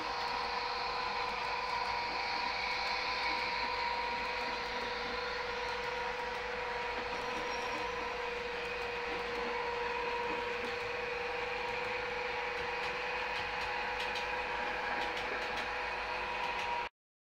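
Sound-fitted Accurascale Class 92 model electric locomotives running along a model railway with freight wagons: a steady electric hum over light rolling noise from the wheels on the track, cutting off suddenly near the end.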